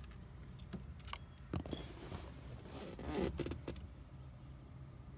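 Clicks and light metallic rattling of small parts and hand tools being handled while a steering wheel is screwed on, with a louder clatter about three seconds in.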